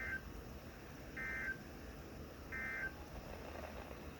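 Weather radio sending the EAS end-of-message signal: three short, identical bursts of warbling SAME data tones about a second apart over a steady radio hiss, marking the end of the alert.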